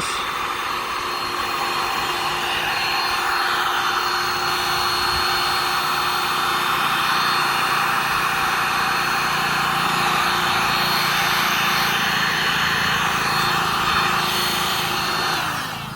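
A 2500-watt electric heat gun running steadily, its fan blowing with a steady whine, heating a plastic channel connector to soften it. It is switched off near the end and its whine falls away.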